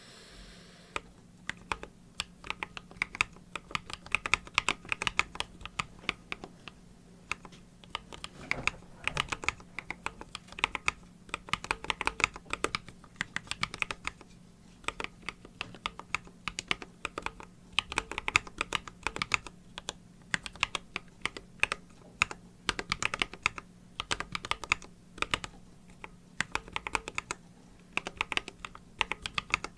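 Typing on a Splaytoraid unibody split mechanical keyboard fitted with pre-lubed Trash switches and MT3-profile keycaps: fast runs of key clacks with short pauses between them.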